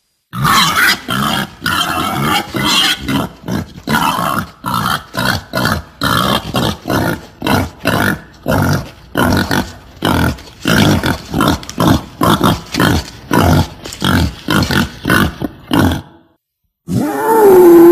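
Female wild boar grunting in a fast, steady series, about two short grunts a second. After a brief break near the end, a loud, drawn-out call with a wavering pitch begins. The calls are used to lure boars when hunting.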